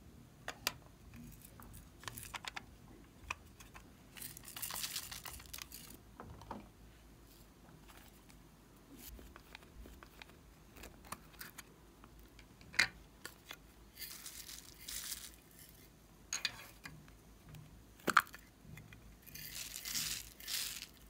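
Small plastic cases and toppings being handled over a glass dish of slime: scattered sharp plastic clicks, the loudest two about thirteen and eighteen seconds in, and three rustling, hissing spells of a second or two each.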